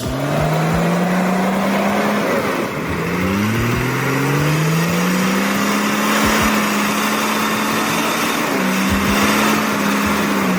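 Six-cylinder turbo log truck engine revving hard under load while stuck in mud. The revs climb, fall back about two seconds in, climb again and hold high, with a short dip near the end.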